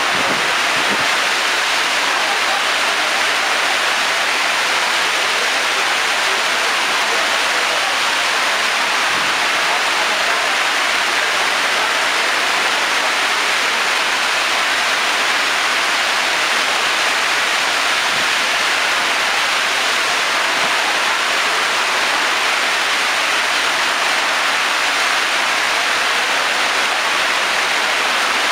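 Heavy rain pouring down in a thunderstorm, a loud, steady hiss.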